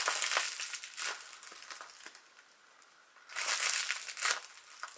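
Kitchen foil wrapped around a taped, stuffed paper squishy crinkling as it is squeezed by hand. There are two squeezes: one at the start that fades over a second or so, and another a little past halfway.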